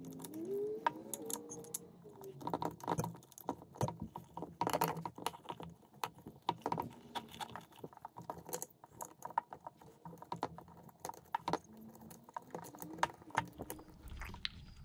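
Irregular small clicks and rustles of hub-motor wires and their plastic plug connectors being handled and pushed through a hole in the skateboard's truck holder.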